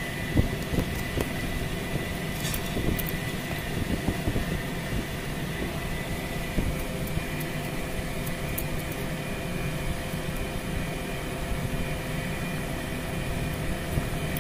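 Steady mechanical hum with a thin, constant whine, like a running fan or workshop machine, with a few light clicks and knocks in the first few seconds.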